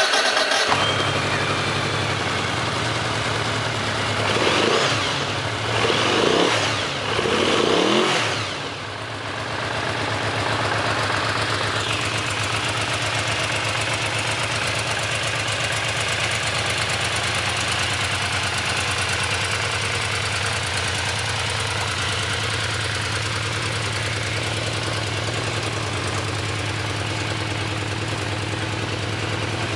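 2014 Yamaha VMAX's 1,679 cc V4 engine running just after start-up. It is revved three times in quick succession in the first nine seconds or so, then settles to a steady idle.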